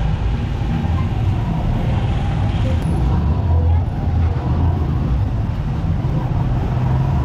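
Motorcycle engine of a Philippine tricycle (motorcycle with sidecar) running steadily while riding, with a continuous low rumble of engine and road noise.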